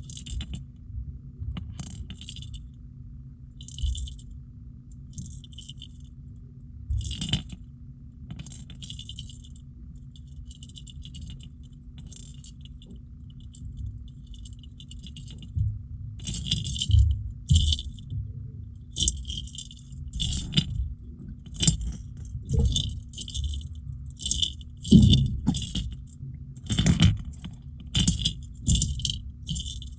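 Weight balls inside a hard plastic jerkbait, a copy of the Megabass Vision Oneten, clattering as the lure is shaken, in short bursts. The bursts are sparse at first and come quicker and louder in the second half.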